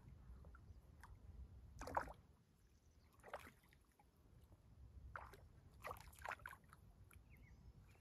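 Faint water splashing and sloshing in short bursts, the sound of a hooked Arctic grayling being played and brought in on a fly line. A low rumble fades out about two seconds in.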